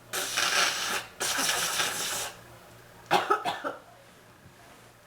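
A woman with bronchitis coughing: two long, noisy blasts of breath of about a second each, then a quick run of several short coughs about three seconds in.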